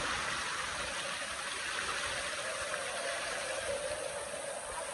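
Shallow rocky stream rushing and splashing over stones in small cascades, a steady even rush of water.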